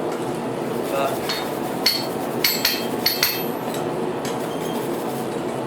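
A string of sharp metallic clinks with a short bright ring, about seven of them between one and three and a half seconds in, as small hand-forged iron forks are knocked together or set down on metal. Behind them a steady mechanical noise from a running shop machine continues throughout.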